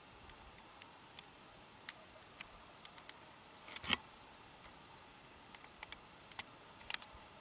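Quiet outdoor background with scattered short clicks and ticks, and a louder brief rustling click about four seconds in.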